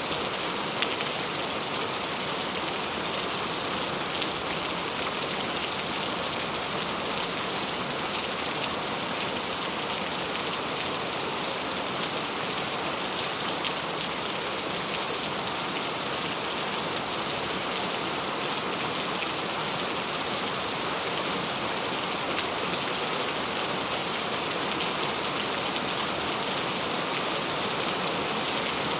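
Steady rainfall, with many individual drops pattering sharply on a surface over the continuous hiss of the rain.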